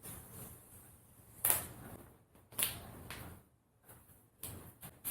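Handling noise from an iPad Pro and its packaging being moved on a surface: soft rustling with sharp knocks, the loudest about a second and a half in and again a second later.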